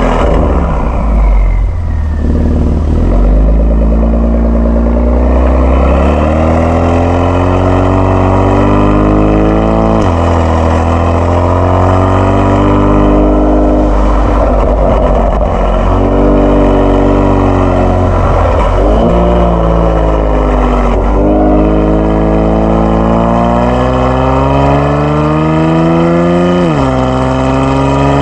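Kia Stinger 3.3's twin-turbo V6 through a JSR Performance aftermarket exhaust, accelerating hard: the exhaust note climbs steadily in pitch and drops sharply at each upshift, three times over the run.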